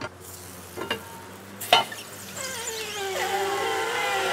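Tortilla dough sizzling as it is pressed flat on a hot tortilla press. The metal lid clanks shut a little under two seconds in, then a wavering squeal rises and grows steadily louder as steam escapes from the dough.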